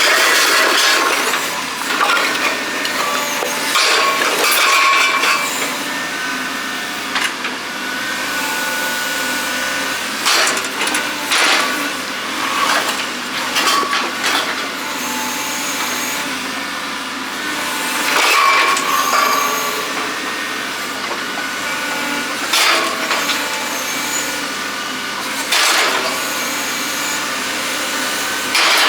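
Steel tines of a heavy-duty excavator scoop rake scraping and grinding across concrete, with high squeals of metal on concrete and repeated sharp cracks and knocks as chunks break.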